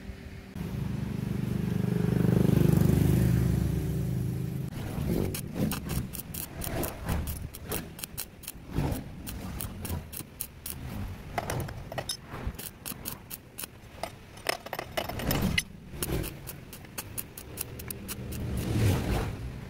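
Stick (arc) welding on the stripped threaded end of a steel shaft, building up metal over the worn threads. A loud electrical hum for the first few seconds, then the arc crackling and sputtering in irregular bursts.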